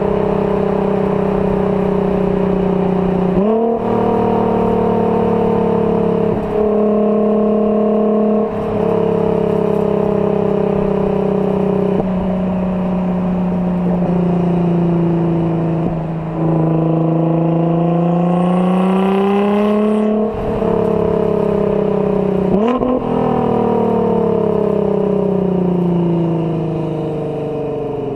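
A 2009 Nissan GT-R's twin-turbo V6 running through an aftermarket AAM exhaust while driven, its pitch sliding up and down with several quick gear changes. Partway through the revs climb steadily while a hiss builds, then a shift cuts it off, and the note falls away near the end.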